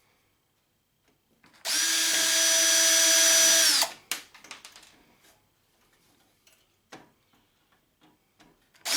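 Power drill driving out screws: a steady whir of about two seconds that winds down as it stops. Light clicks of screws and parts being handled follow, and the drill starts again right at the end.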